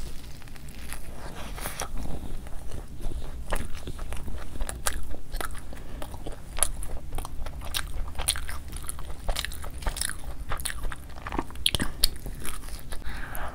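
Close-miked eating sounds: biting into and chewing a soft buttered cheesy masala pav bun, with many short, sharp wet clicks and smacks from the mouth.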